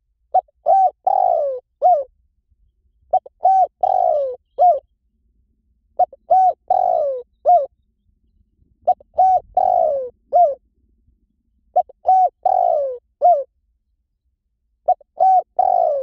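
Spotted dove cooing. Its song phrase is a few short coos, then a longer falling coo, then a last short coo, repeated about every three seconds, six times over.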